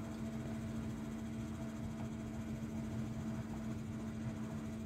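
Steady low mechanical hum, with one constant low tone and a fainter higher one above it.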